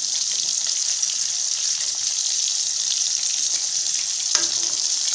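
Masala-coated fish pieces deep-frying in hot oil in a kadai: a steady, high sizzle. A single short knock comes about four seconds in.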